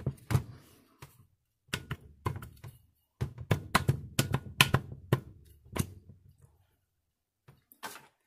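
Sharp metal clunks and taps in quick irregular succession for about six seconds, then two more near the end, as the steel housing halves and coil spring of a Bedford bus air-over-hydraulic brake air actuator are handled and turned on a workbench.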